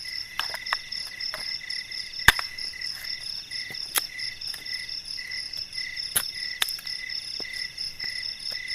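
Short blade chopping and splitting kindling, a handful of sharp irregular knocks with the loudest a little over two seconds in, over a steady pulsing trill of night insects.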